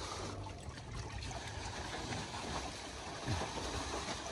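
Water trickling steadily, a continuous even noise with no distinct knocks or splashes.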